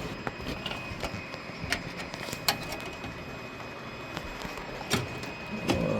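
Scattered light clicks and knocks of a graphics card and its metal bracket being handled and fitted into a PC case's PCIe slot, over a steady background hum.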